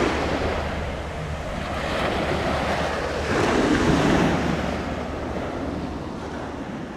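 Small waves breaking and washing up a sandy beach, the surf rising and falling in surges, loudest about four seconds in. Wind rumbles on the microphone underneath.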